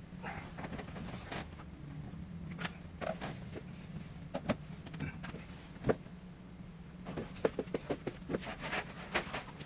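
Bedding rustling and soft knocks as someone gets out of bed, then a quick run of clicks near the end as the curtain runners slide along the track while the curtains are drawn open. A steady low hum runs underneath.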